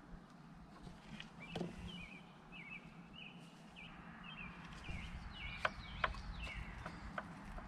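Small birds chirping in quick repeated calls, with a few sharp clicks of a screwdriver working at the engine's distributor points about two-thirds of the way in.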